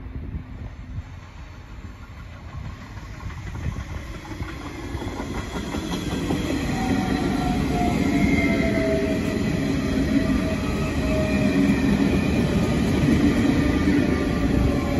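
Electric passenger train approaching and running alongside the platform: a wheel-on-rail rumble that swells over the first several seconds and stays loud, with a motor whine of several tones gliding slowly down in pitch as the train slows.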